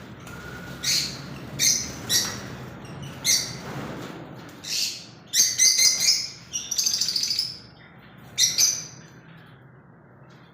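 Lovebirds calling in an aviary: a string of loud, high-pitched chirps and squawks, with a few quick rattling runs of calls near the middle.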